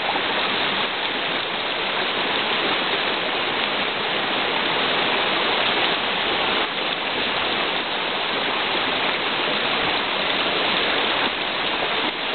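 Rainwater runoff rushing down a flooded forest trail: a steady, unbroken rush of running water, a small torrent over the rocks.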